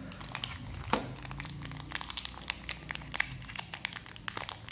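Crinkling and scattered small clicks of handling: a coiled USB-C data cable being lifted out of a cardboard phone box tray and turned over in the hands, with one louder click about a second in.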